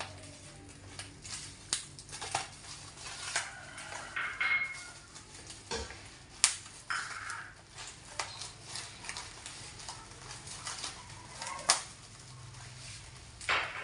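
Bubble wrap and plastic packaging crinkling and rustling as it is pulled apart by hand, with scattered clicks and two sharp snaps, about six and a half and eleven and a half seconds in.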